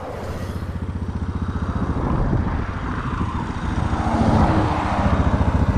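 Suzuki DR650's single-cylinder engine running at a steady idle, with the revs rising a little around two seconds in and again around four seconds in.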